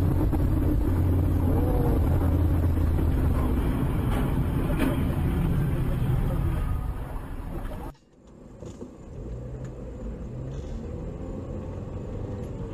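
Car road and engine noise picked up inside the cabin by a dashcam while driving: a loud, steady low rumble that cuts off suddenly about eight seconds in, giving way to a quieter, steady cabin hum.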